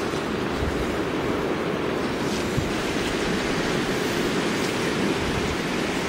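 River water rushing steadily over a stony bed, an even rushing noise with no break.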